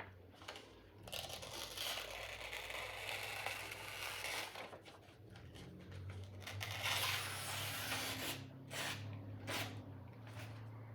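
A sword blade being sharpened: a long scraping stroke of about three seconds, a second stroke of about two seconds, then a few short quick strokes.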